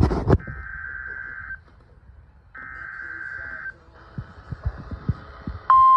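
Emergency Alert System SAME header data bursts: two harsh, buzzy digital bursts of about a second each, a second apart, announcing a new severe thunderstorm warning. Near the end the loud, steady NOAA Weather Radio 1050 Hz attention tone starts.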